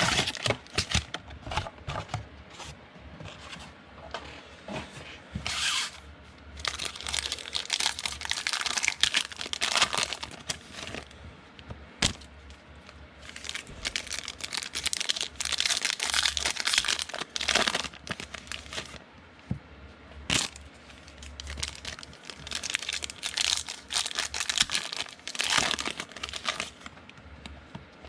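Trading-card pack wrappers being torn open and crinkled by hand, in several stretches of ripping and rustling, with light clicks from the cards being handled between them.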